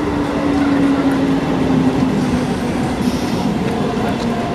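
Electric multiple unit (EMU) local train running past alongside the platform: a loud, steady rumble of wheels on the rails, with a low hum that slowly drops in pitch.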